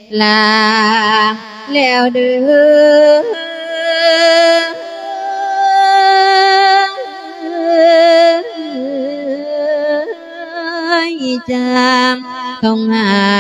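A monk singing a Thai verse that invites the spirit of a dead father, into a microphone, in slow phrases of long held notes with a wavering vibrato, with short breaks between phrases.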